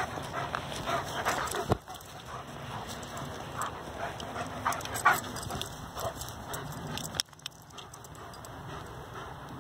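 A dog panting, mixed with footsteps crunching in snow and a few sharp clicks. The sound goes quieter about seven seconds in.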